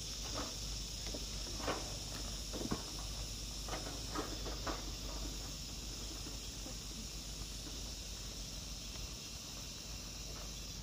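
Insects chirring steadily in a high, even drone, with a few short, sharp knocks or chirps in the first half.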